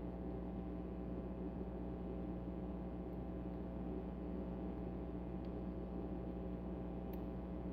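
A steady low hum, with two faint ticks about five and seven seconds in from a lock pick working the pins of a pin-tumbler rim cylinder.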